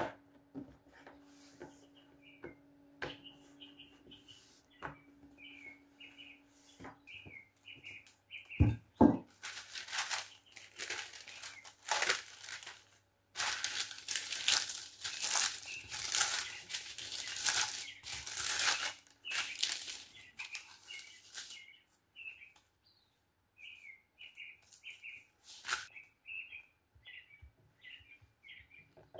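Parchment baking paper crinkling and rustling in loud, dense bursts for about ten seconds as it is pressed and folded into a glass pie dish, starting about ten seconds in. Just before it, two dull knocks. Small birds chirp faintly throughout.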